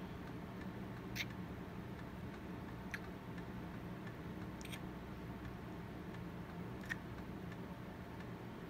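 Steady low hum and hiss of a quiet voice recording, with four faint sharp clicks at irregular spacing.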